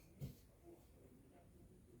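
Near silence: faint room tone, with one brief faint thump about a quarter of a second in.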